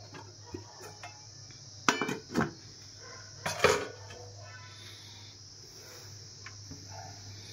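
Glass pot lid with a metal rim being set onto a cooking pot of layered biryani, covering it to steam: a few sharp clinks about two seconds in, then a louder ringing clink about three and a half seconds in. A steady high-pitched whine and a low hum sit underneath.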